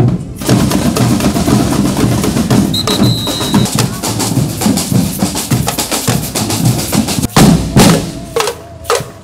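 Marching percussion band of snare and bass drums playing a dense, fast parade rhythm. A brief high tone sounds about three seconds in, and near the end the drumming turns into louder, separate strokes close by.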